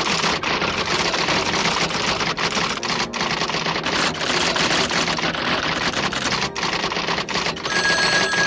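Fast, continuous clatter of typing machine keys striking, with a bell ringing about a second long near the end.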